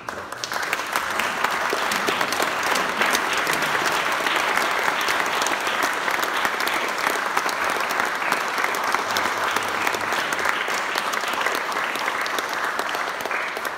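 A small seated audience applauding, many hands clapping together: it starts suddenly, builds over the first second and then holds steady.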